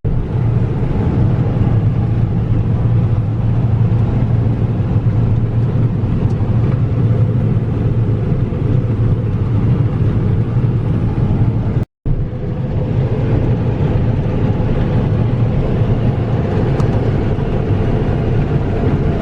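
Diesel engine of heavy farm machinery, a combine or tractor, running steadily under load with a constant low drone, broken once by a momentary gap about twelve seconds in.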